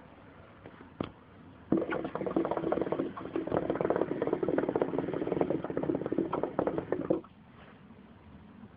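Shisha (hookah) water bubbling steadily as smoke is drawn through the base, a single long pull of about five and a half seconds that starts about two seconds in and stops sharply. A single click comes about a second in.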